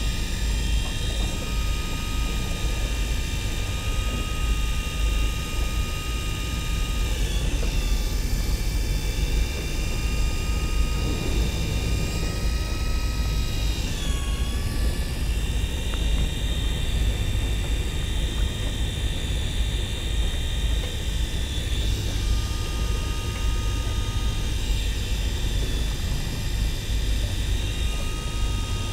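A motor running steadily: a low rumble under a steady whine, with the whine dipping briefly in pitch twice, about a quarter and about halfway through.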